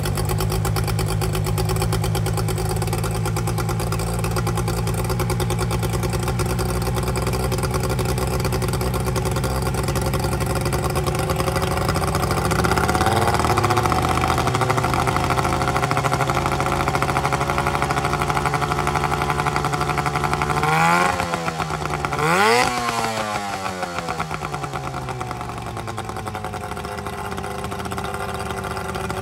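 Brand-new Hangkai 12 hp two-stroke outboard motor (a Tohatsu copy) running on its stand. It runs steadily, picks up speed about halfway through, is revved up and back down twice in quick succession, then settles to a lower, quieter idle.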